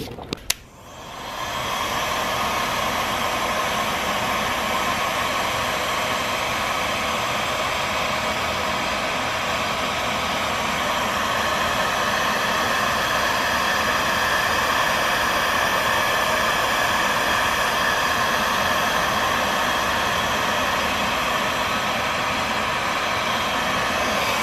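Electric heat gun switched on with a click, its fan spinning up within about a second into a steady blowing hiss, used to shrink heat-shrink tubing over repaired headlight wires.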